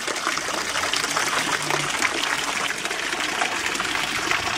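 Water pouring from the metal spouts of a stone fountain and splashing steadily into the water of its stone trough.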